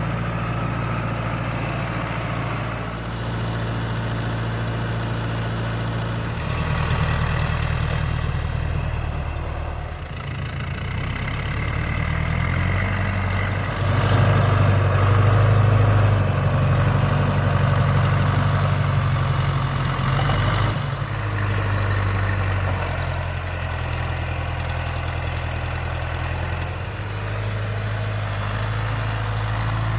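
Snow-plowing vehicle engine running steadily. Its pitch steps up and down several times as the engine works, loudest about halfway through.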